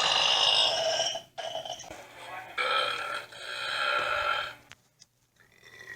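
A man belching: a long burp that stops about a second in, a short one just after, then another long drawn-out belch of about two seconds.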